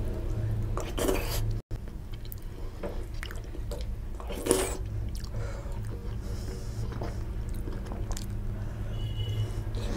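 Close-miked wet eating sounds: fingers squishing soft khichuri and a mouth chewing it, with one short, sharp mouth sound about four and a half seconds in, over a steady low hum.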